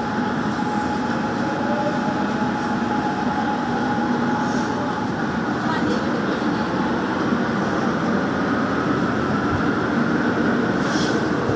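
Gwangju Metro Line 1 subway train running, heard from inside the car as it leaves the station into the tunnel: a steady rumble of wheels on rail, with a faint whine slowly rising in pitch as it picks up speed.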